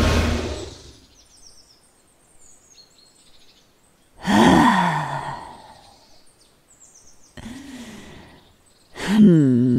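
A loud rushing whoosh fades out within the first second. Faint birdsong of a forest ambience runs under three grunts of effort from a woman's voice, about 4, 7.5 and 9 seconds in, each rising then falling in pitch. They are the strain of the dragoness pushing against a portal too small for her wings.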